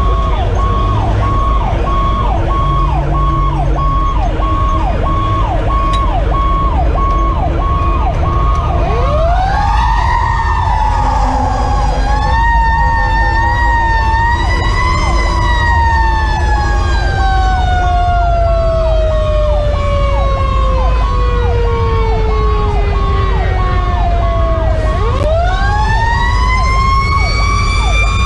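Fire engine sirens sounding while the truck drives on a call. An electronic siren runs in a fast repeating yelp. About nine seconds in a second siren winds up, falls slowly in pitch over about fifteen seconds, and winds up again near the end, over a steady low engine and road rumble.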